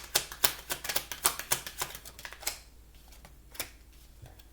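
Oracle card deck being shuffled by hand: a quick, even run of card slaps about four a second that stops about two and a half seconds in, followed by a few single taps of cards.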